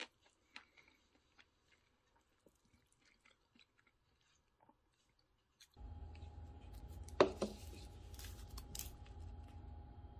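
Faint eating sounds: small clicks of a spoon against a ceramic bowl and quiet chewing. About six seconds in these give way to a steady room hum with a thin steady tone, a sharp knock about a second later and a few softer clicks, as things are set down on a kitchen counter.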